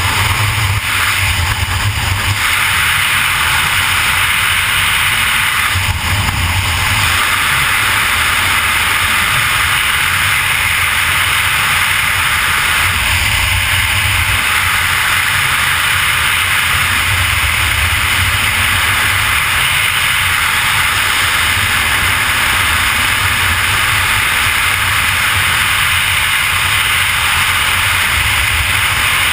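Loud, steady rush of wind over a GoPro's microphone in skydiving freefall: a constant hiss with uneven low rumbling buffets underneath.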